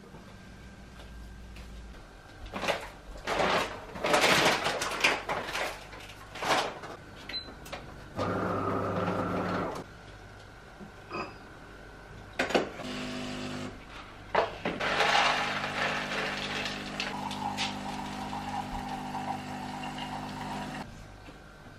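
Household handling noises, a run of rustling and clattering, then a small electric appliance humming briefly. A little later a longer steady hum of about six seconds follows.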